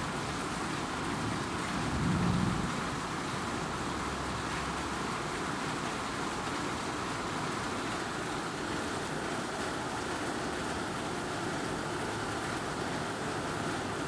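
Steady rain falling, with a low rumble of thunder swelling and fading about two seconds in.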